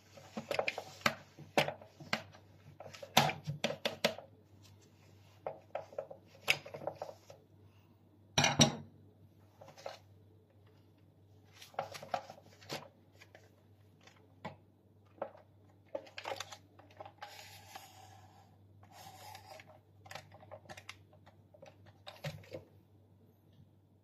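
A wipe rubbed and pushed around inside the plastic brush-bar cavity of a Dyson vacuum cleaner head, with scattered clicks and knocks of the plastic housing being handled and one louder knock about eight seconds in. Longer rubbing scuffs come in the second half.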